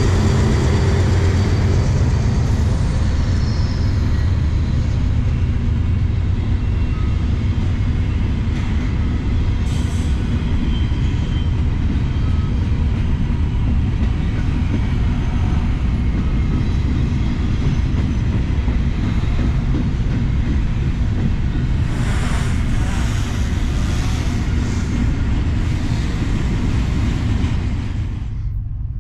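BNSF freight train running on the rails: a steady, loud, low rumble of wheels and cars, with some lighter rattling near the end.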